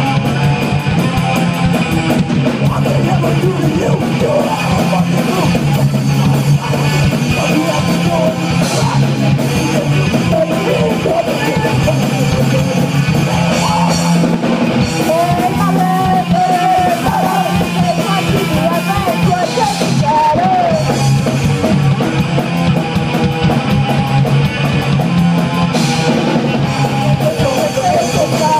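Punk band playing live: electric guitar and drums with vocals, loud and continuous, picked up by a phone's microphone.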